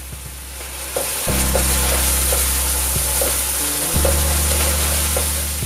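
Butter, sugar and coconut-milk sauce sizzling and bubbling in a cast-iron skillet while a wooden spoon stirs it, with small scraping ticks against the pan. The sizzle grows louder about a second in.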